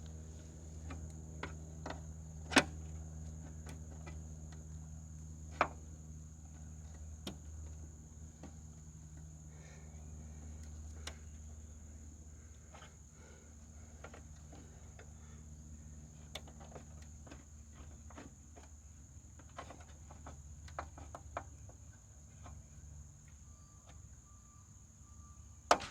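Scattered light metal clicks and clinks as the mower's side chute and vise grips are handled and adjusted, the sharpest about two and a half seconds in and again near six seconds. Under them run a steady low hum and a steady high chirring of crickets.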